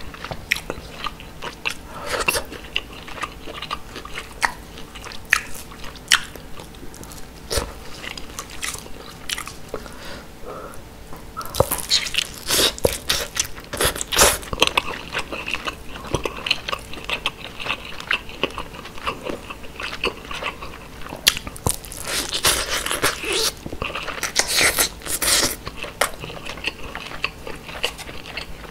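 Close-miked eating of grilled mackerel: bites into the fish and chewing, as a run of sharp clicks and crunches. They are loudest and densest around the middle and again a few seconds before the end.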